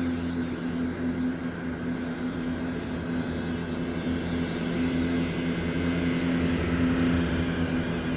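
Playback of a sound-art installation recording: a steady low droning hum with a rushing noise beneath it, swelling slightly midway.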